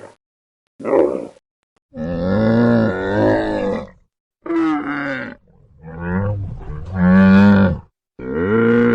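Recorded animal calls: a series of loud, pitched calls, some long and wavering in pitch, broken by abrupt silent gaps between clips.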